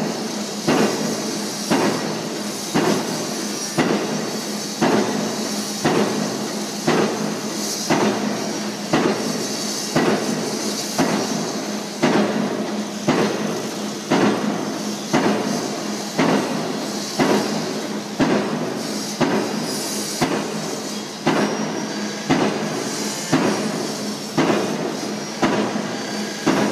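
Pile-driving rig's hammer striking a pile about once a second in a steady rhythm, each blow fading before the next. A steady engine hum runs underneath.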